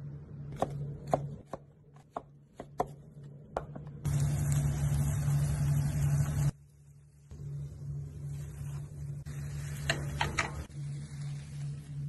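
Sharp taps and clicks of floured anchovies being laid in a round metal pan, then a loud hiss about four seconds in that cuts off suddenly after about two and a half seconds, over a steady pulsing hum.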